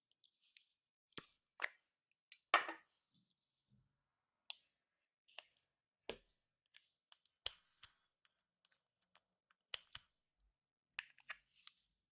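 Clear slime being handled, with makeup and glitter mixed in. Scattered sharp, sticky clicks and pops come every second or so, with a longer crackle about two and a half seconds in.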